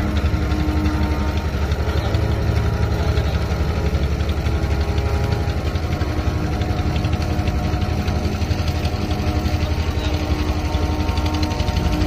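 Motorboat engine running steadily with a rapid low pulsing, heard from on the river.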